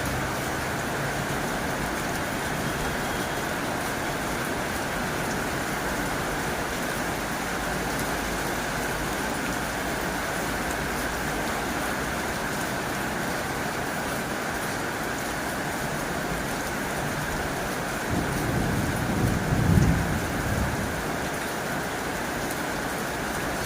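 Heavy rain falling steadily on a tin roof. Near the end, a low rumble swells for about three seconds and fades.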